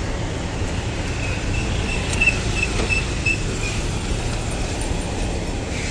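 Street traffic noise: a steady low rumble from cars and a motorcycle passing. A run of about eight short, high chirps comes about a second in and lasts some two seconds.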